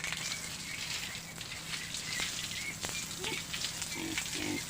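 Pigs grunting a few times in the second half, over a steady crackling, rustling noise with scattered clicks.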